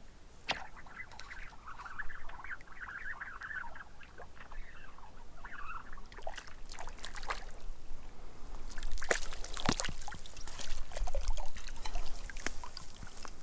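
Water splashing and trickling as a hooked Arctic grayling thrashes at the lake surface, with a run of sharper, louder splashes in the second half.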